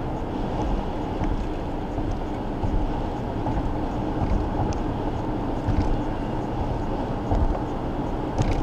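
Steady tyre and engine rumble heard inside a car's cabin while it drives along a highway.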